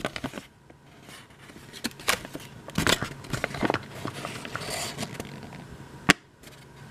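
Crinkling and rustling of a folded paper instruction leaflet being opened out and handled, in irregular bursts. Near the end comes one sharp click.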